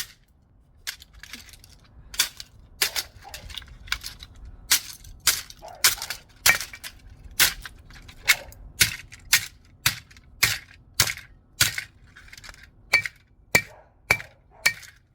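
A hammer repeatedly striking a digital alarm clock: about twenty sharp blows, a little under two a second, some leaving a brief ring.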